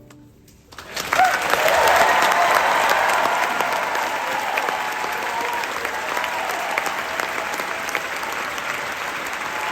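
Concert audience bursting into loud applause and cheering about a second in, just after the last notes of a song die away; the clapping peaks early and then holds steady.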